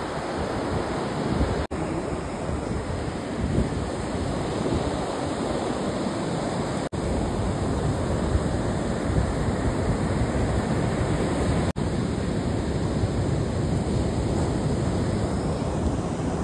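Wind buffeting the microphone over the steady wash of rough surf. The sound cuts out for an instant three times.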